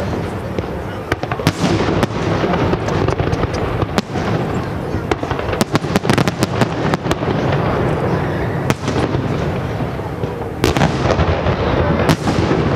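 Aerial firework shells bursting one after another in a salute display: many sharp bangs over a continuous crackle, with a dense run of bangs around the middle.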